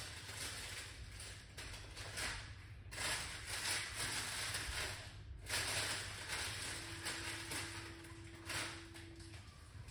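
Kitchen tap running into a sink while something is rinsed under it. The flow breaks off briefly about two and a half seconds in and again about five seconds in. A faint steady hum sounds alongside it later on.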